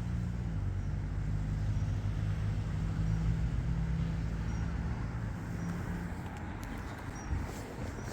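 A motor vehicle's engine running with a steady low hum, fading away about six seconds in.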